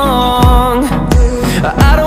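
Background pop/R&B music with a steady beat: a deep kick drum about twice a second under a melody line that slides between notes.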